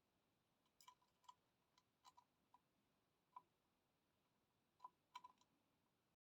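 Near silence broken by about a dozen faint, light clicks, some in quick pairs and clusters, from small parts of an AIO liquid cooler's pump and its mounting bracket being handled and fitted.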